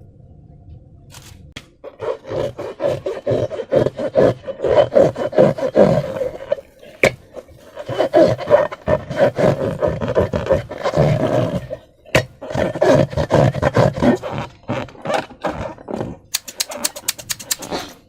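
Slime being squished and worked, crackling and squelching with many small clicks in three long bouts, then a fast run of sharp clicks near the end.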